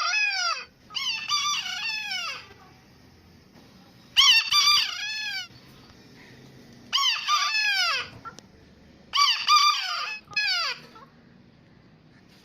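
Rooster crowing repeatedly, about five full crows a second or three apart, each a long cock-a-doodle-doo that ends on a falling note.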